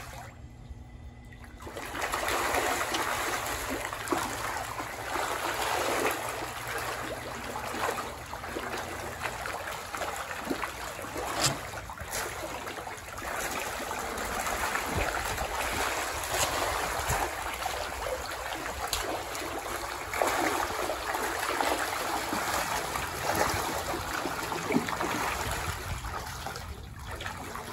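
A swarm of catfish thrashing and splashing at the water's surface in a feeding frenzy on thrown food scraps, a continuous splashing that starts about two seconds in.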